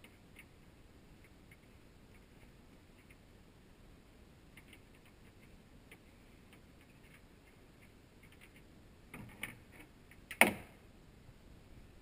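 Faint small clicks of a stainless retaining pin being worked in its wheel-mount bracket on a fiberglass boat deck. A cluster of clicks comes about nine seconds in, then one sharp knock, the loudest sound.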